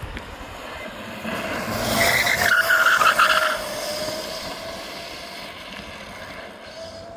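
Home-built electric go-kart driving past close by: its DC motor whines with a steady tone that falls slightly in pitch as it goes by. Its tyres screech briefly at the loudest point, two to three and a half seconds in, then the sound fades as it drives away.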